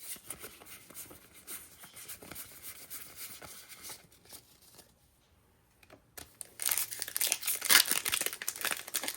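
Foil booster pack wrapper rustling as it is handled. After a brief pause near the middle, it crinkles loudly and tears as the pack is ripped open.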